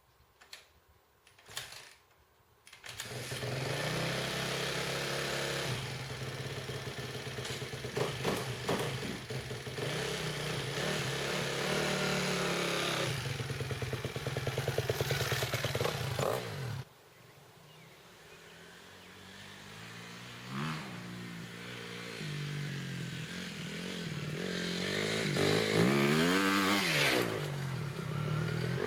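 A few short knocks, then a dirt bike's engine starts about three seconds in and runs with revs. Partway through it suddenly drops much quieter, then builds back up with rising and falling revs.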